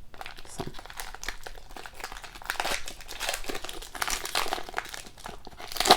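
Continuous crinkling and crackling of plastic-wrapped trading-card packs being handled.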